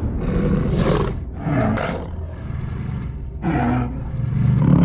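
Wolves growling and snarling in about four bursts, over a steady low rumble.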